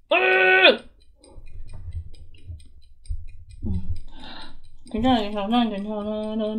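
People reacting to the burn of an extremely hot lollipop: a short, loud 'ooh'-like cry, then breathy hissing and low bumps, and from about five seconds in a long wavering hum through closed lips around the candy.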